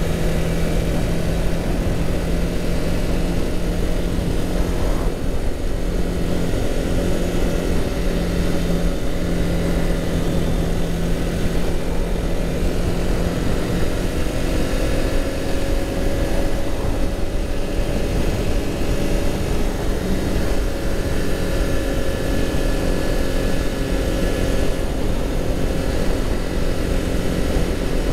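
Motorcycle engine running at a steady cruising speed, its note holding even, with wind rushing over the microphone.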